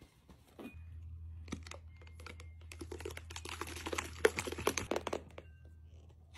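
Quick plastic clicking and crinkling as a baby bottle of breast milk is handled and shaken, loudest about three to five seconds in, over a low steady hum that starts about a second in.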